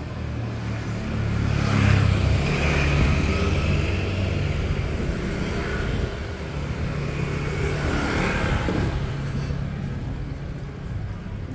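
Street traffic of small motorbikes passing close by, engines running. One passes loudest about two seconds in, and another vehicle swells past around eight seconds.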